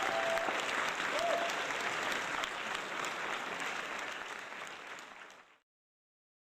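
Applause: dense clapping that fades away over the last second and then stops dead.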